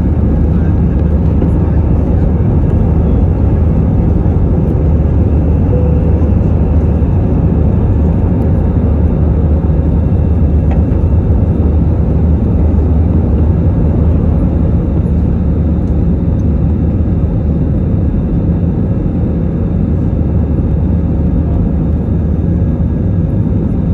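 Steady cabin noise of an Airbus A320 heard from a window seat: an even, loud low drone of the engines and airflow that holds level with no spool-up or change.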